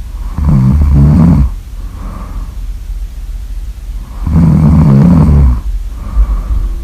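Loud snoring: two long, rattling snores, one about half a second in and one about four seconds in, with softer breathing out between them.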